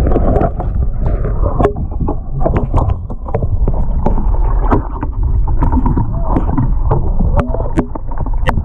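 Muffled underwater sound from a submerged camera in a swamped boat: a steady low churning rumble of lake water with many scattered knocks and clicks of gear moving against the hull.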